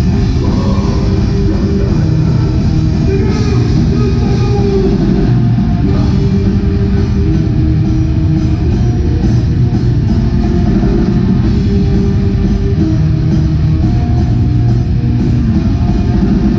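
Black metal band playing live: distorted electric guitars, bass and a drum kit, loud and unbroken, heard from within the crowd with the low end dominating.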